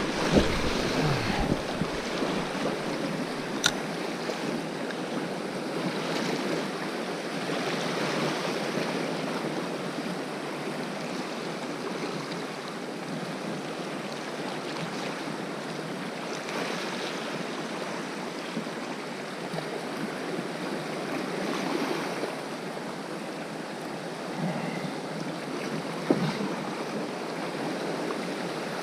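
Sea waves washing against a rocky shore: a steady wash that swells and eases every few seconds, with a couple of small clicks.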